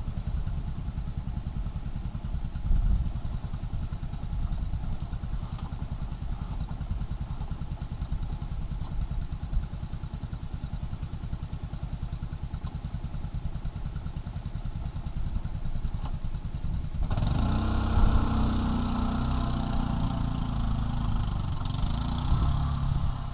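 Linhai ATV engine idling steadily with an even putter, then revving up about three quarters of the way through as the quad pulls away.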